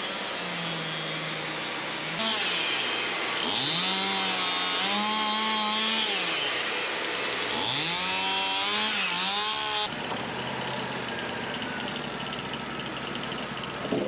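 Wood-Mizer LT40 portable band sawmill cutting through a log, the band blade running in the wood. The pitch dips and recovers several times as the mill works under load, and the sound changes abruptly about ten seconds in.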